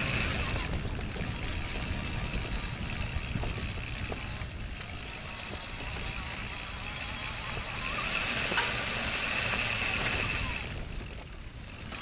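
Electric recumbent trike riding over a rough dirt track: a continuous low rumble from the tyres on rough ground and the moving ride, with a steady high thin whine from the electric drive that fades out for about a second near the end.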